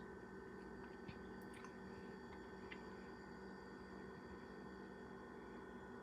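Near silence: quiet room tone with a faint steady electrical hum and a few soft clicks.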